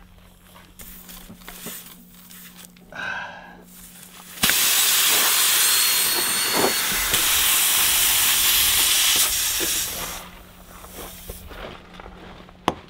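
Compressed air hissing in a loud, steady rush that starts abruptly and lasts about five and a half seconds, then fades. A sharp click comes near the end.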